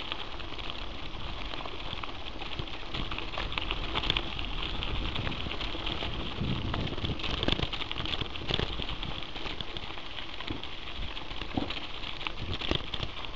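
Mountain bike rolling over a dirt and gravel track, tyres crackling and the bike rattling in many small clicks, with a steady low rumble underneath.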